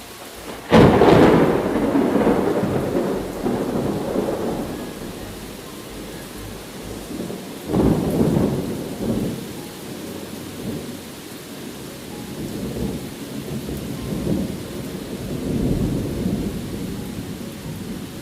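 Thunder over steady rain: a sharp clap about a second in that rolls off over several seconds, a second clap around eight seconds in, then long rolling rumbles that swell and fade.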